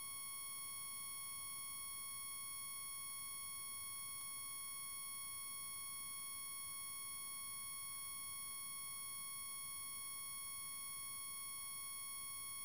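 A steady, high-pitched electronic tone held at one unchanging pitch and level throughout, like a test tone or a continuous beep.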